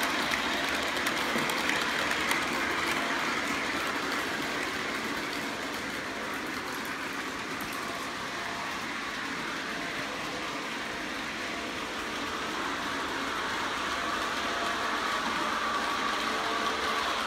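O gauge model train, a Penn Central GG1 locomotive with Amtrak passenger cars, running on the track: a steady rumble of wheels and motor, a little quieter in the middle and louder again near the end.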